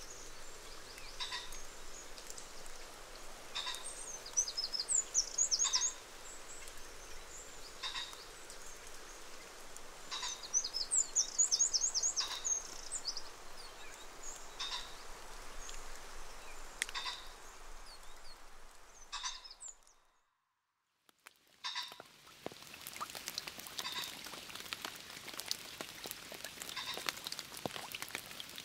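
Common kestrels calling: short, sharp calls repeated about every second and a half, with two rapid runs of high notes about four and ten seconds in. The sound drops to near silence for a moment about two-thirds of the way through, then the calls resume.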